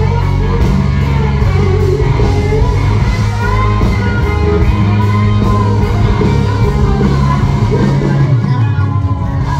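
A live country band playing loud, with guitars and a heavy bass and drum bed, and singing over it.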